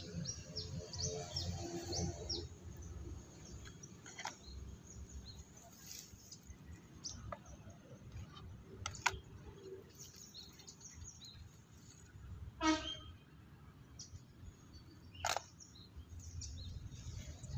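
Birds chirping faintly in the background, with occasional handling noises: a few sharp clicks and knocks and some rustling as muddy plastic toys are moved about in a plastic basket.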